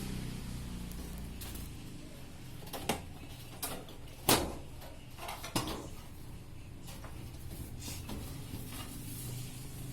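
Handling noises: a few short, sharp clicks and knocks over a low steady hum, the loudest about four seconds in.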